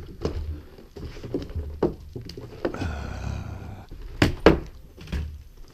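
Scattered knocks and scuffs on a snowy wooden deck, with two sharp knocks about a quarter-second apart a little past four seconds in.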